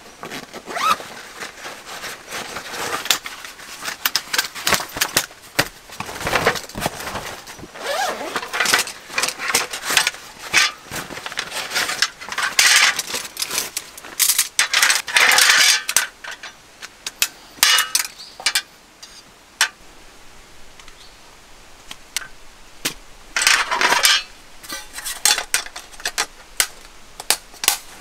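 Camping gear being handled and assembled by hand: a fabric pouch handled, then a folding metal camp table unfolded and set up, with many small clicks, clinks and scrapes of its light metal legs, frame and slats, and short rustles.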